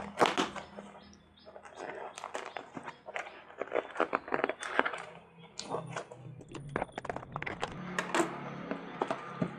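A parcel being opened by hand: a rapid run of crackles, rustles and small clicks of packaging, over a faint low steady hum.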